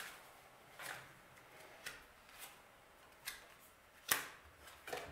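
Tarot cards being handled: a handful of short, faint clicks and taps as cards are drawn from the deck and laid down, the loudest about four seconds in.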